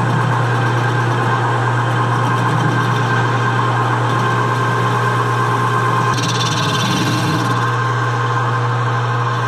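Metal lathe running steadily, spinning a counterweighted, out-of-balance workpiece with a constant low motor hum and whine. About six seconds in, a higher hiss joins as the boring bar starts cutting in the exhaust port, throwing chips.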